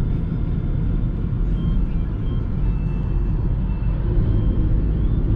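Steady cabin noise of a car driving at road speed: an even low rumble of tyres and engine.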